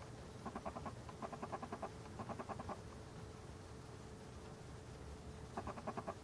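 Red fox cub greeting its mother with rapid, stuttering whimpers in short bursts: three bursts in the first three seconds and another near the end.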